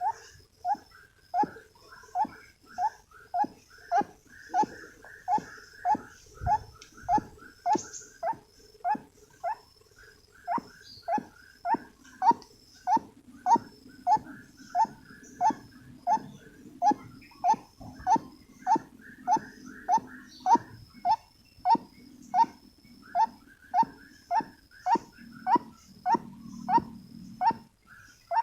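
White-breasted waterhen calling: one short note repeated over and over in a steady, even rhythm, about one and a half calls a second.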